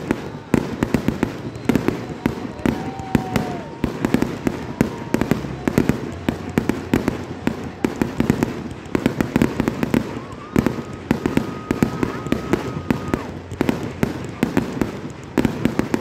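Fireworks display: a rapid, continuous barrage of bangs and crackles from aerial shells bursting, with a faint whistle twice.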